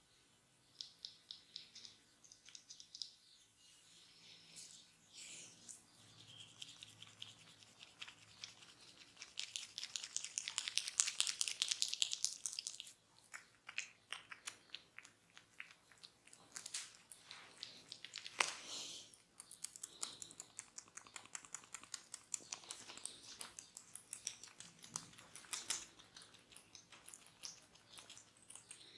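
Barber's hands rubbing hair and skin close to the microphone during a head and ear massage: a dense run of small crackles and rustles, louder for a few seconds about ten seconds in.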